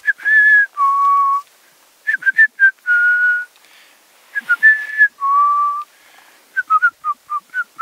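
A man whistling a simple tune: long held notes and runs of quick short ones, the same phrase twice over.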